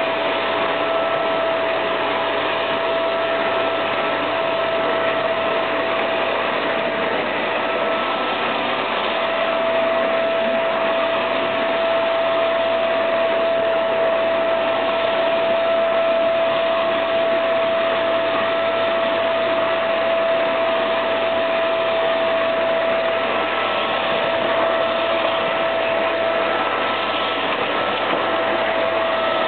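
Vacuum cleaner running steadily: a constant rush of air with a steady whine held at one pitch.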